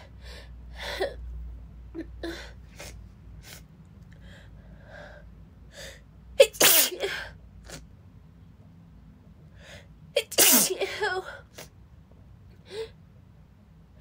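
A woman sneezing hard twice, about six and a half and ten and a half seconds in, with short gasping breaths between: a sneezing fit brought on by illness.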